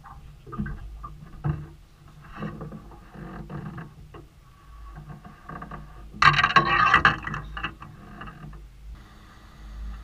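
Landing net pole and gear knocking and clattering against a small boat's hull and deck as a fish is netted, with a loud, noisy burst about a second long some six seconds in, over a low steady hum.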